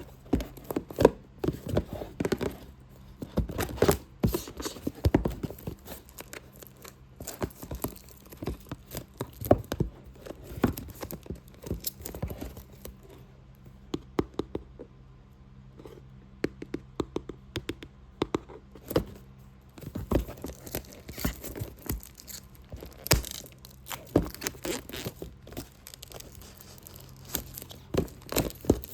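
Fast, irregular tapping and scratching on a box: dense clusters of sharp taps that thin out to a few scattered ones for several seconds midway, then pick up again.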